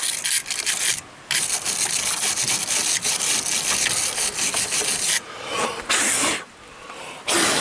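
Wire brush scrubbing corrosion off car battery terminals: a rapid, scratchy scrub of quick strokes that pauses briefly about a second in and breaks into two shorter bursts near the end.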